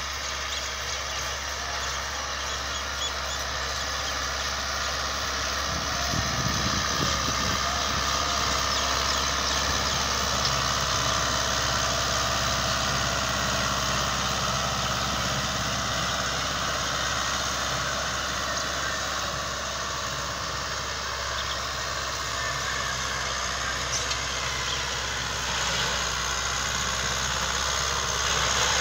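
Euro Ford 5880 tractor's diesel engine running steadily under load as it pulls a disc harrow set fully open. The sound grows louder about six seconds in as the tractor comes closer.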